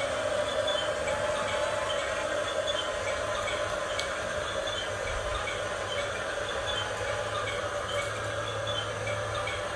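Small electric motors and plastic gearboxes of an RC model excavator and dump truck running steadily, a constant mechanical whine with a low hum beneath and faint repeating ticks.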